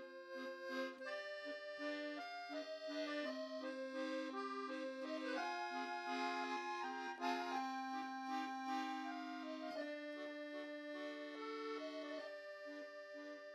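Background music: an accordion playing a French café-style tune in held, stepping notes.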